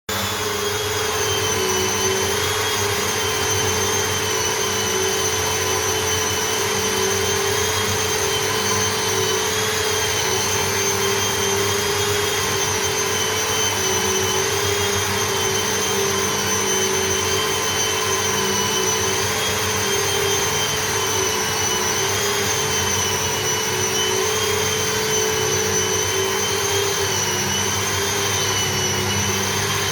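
A high-speed electric motor running steadily for the whole stretch, a loud rushing noise with a high whine that wavers slightly in pitch.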